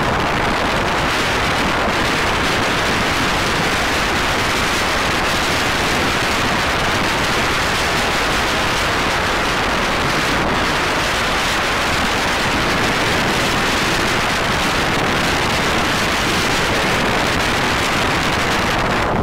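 Steady rush of wind and road noise from a car moving at highway speed, with wind buffeting the microphone.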